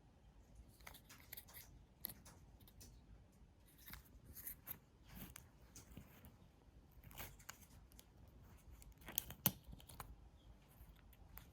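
Faint handling of packaging, with scattered rustling, crinkling and tearing sounds and light clicks. The sharpest click or tap comes about nine and a half seconds in.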